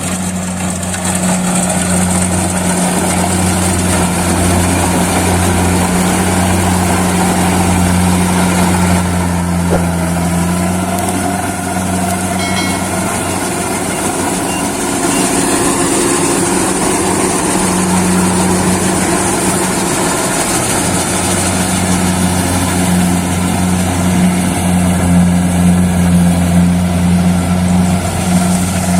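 Kubota DC-70 Plus combine harvester's diesel engine running steadily, with a deep, even hum.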